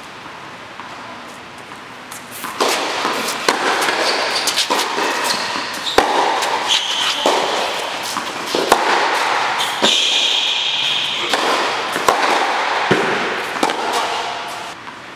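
Tennis rally on an indoor hard court: sharp pops of racket strings hitting the ball and the ball bouncing, mixed with high squeaks and scuffs of tennis shoes on the court. The rally starts about two and a half seconds in and ends about a second before the end.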